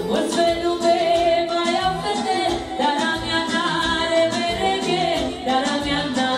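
Live manele music from a band: a singer's wavering melodic line over a steady dance beat.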